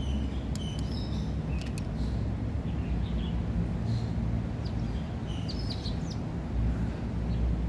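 Birds chirping: many short, high chirps and whistled notes scattered throughout, over a steady low rumble.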